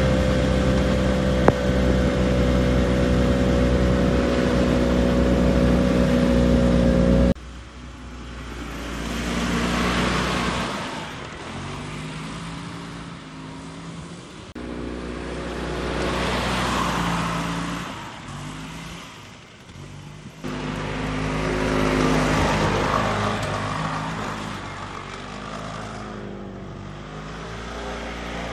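Two-cylinder petrol engine of a utility golf cart running while driving, its intake valve clearance freshly reset. Steady and loud for about seven seconds, then suddenly quieter and heard from outside, swelling and fading several times with the engine note rising and falling as the cart passes and circles.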